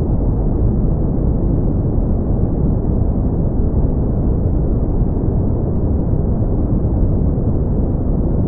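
Steady brown noise: a deep, even rushing hiss, strongest in the low end and fading out toward the highs.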